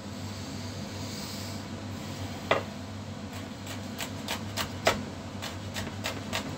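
Kitchen knife slicing a thick-skinned chili pepper on a cutting board: short sharp taps start about two and a half seconds in and then come about three a second. The blade breaks through the tough skin with a light crunch rather than cutting softly, which the cook takes as a sign that the knife is not sharp enough. A steady hum runs underneath.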